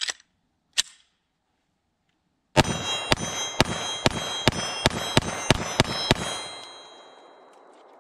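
Glock 34 9mm pistol with a ported barrel firing a rapid string of about ten shots, each with a metallic ring typical of hits on steel targets. The string ends with the slide locked back on an empty magazine, and the last shot's echo fades away over about two seconds.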